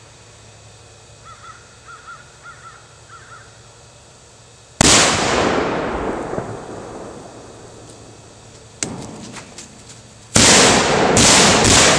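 A bird calls six times, then a homemade black-powder mortar goes off with a loud blast about five seconds in that dies away over a couple of seconds. A sharp crack and a few small pops follow near nine seconds, and a second volley of loud blasts starts about ten and a half seconds in.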